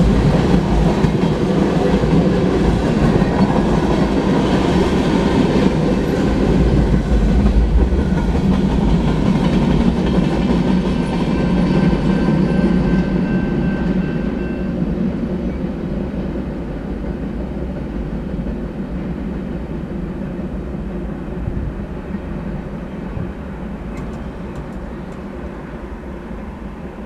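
Freight cars of a long manifest train, tank cars and covered hoppers, rolling past with a heavy rumble of wheels on rail. About halfway through the last cars go by and the sound fades steadily as the train moves away.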